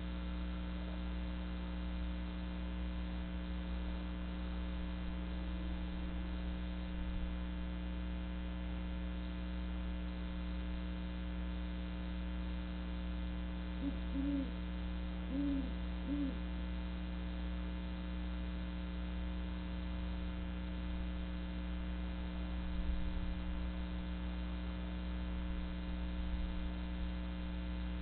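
Great horned owl giving a short series of low hoots about halfway through, over a steady electrical hum.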